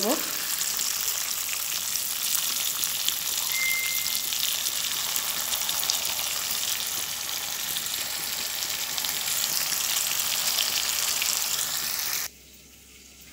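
Marinated cauliflower and capsicum kebab skewers sizzling in hot oil in a kadai, a steady crackling sizzle of medium frying on a medium-low gas flame. The sizzle cuts off suddenly near the end.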